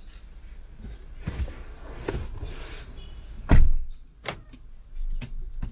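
Rustling and handling noises, then a car door shut with a heavy thud about three and a half seconds in, followed by a few sharp clicks.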